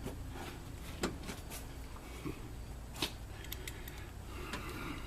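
Hand tools being handled on metal: two sharp clinks, about one and three seconds in, and a few light ticks just after, over a steady low hum.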